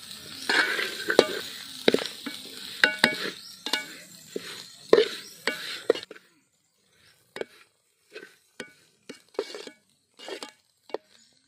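Metal ladle scraping and clinking against a metal pot as a dry fry of goat intestines is stirred, over a light sizzle. About six seconds in the sizzle drops out and the scrapes go on more sparsely.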